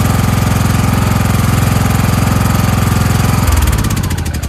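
Craftsman lawn tractor engine running steadily, then shut off about three and a half seconds in, its firing slowing and fading as it runs down to a stop.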